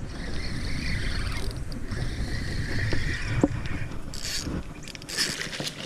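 Fishing reel being cranked to bring in a hooked snook, a steady mechanical whirring over a low rumble.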